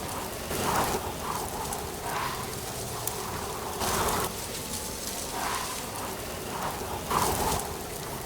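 Wind through dry autumn leaves: a continuous rustle that swells in short gusts about once a second, with a few faint high ticks.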